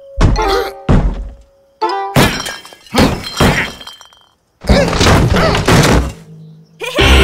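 Cartoon sound effects of a mallet banging on a table: about five loud knocks in the first three and a half seconds, then longer stretches of crashing noise about halfway through and again near the end, with music underneath.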